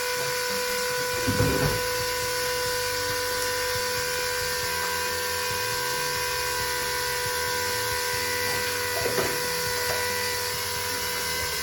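Small electric transfer pump running steadily with a constant motor whine as it pumps RV antifreeze ballast into a tractor tire. There are a couple of brief knocks, about a second and a half in and about nine seconds in.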